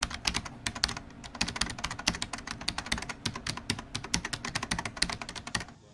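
Computer keyboard typing sound effect: rapid, irregular key clicks that stop abruptly near the end.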